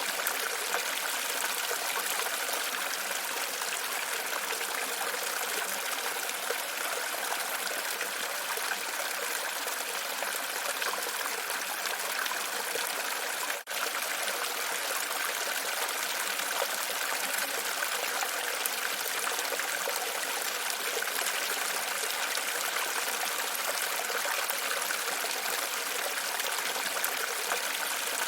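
Running water, a steady even splashing, with one brief dropout about halfway through.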